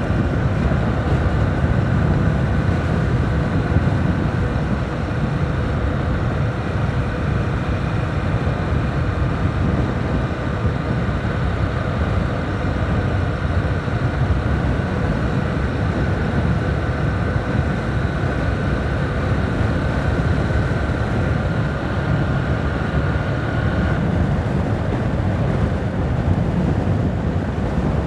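Wind buffeting the microphone of a moving motorcycle, with the engine and road noise running steadily underneath.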